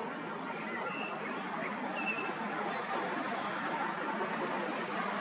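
A bird repeats a short high chirp about three times a second, with a few other bird calls, over a steady background rush.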